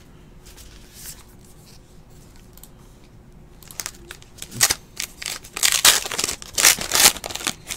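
Baseball card packs and cards being handled: a quiet first half, then irregular crinkling and sharp snapping from about halfway in.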